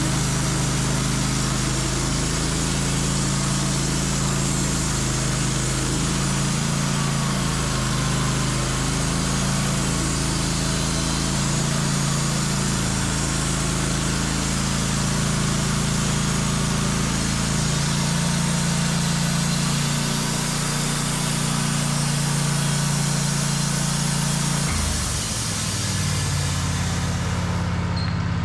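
Sawmill engine running steadily under load, with the hiss of the saw cutting through a sugar maple log. About 25 seconds in the engine note shifts, and the high hiss of the cut fades near the end.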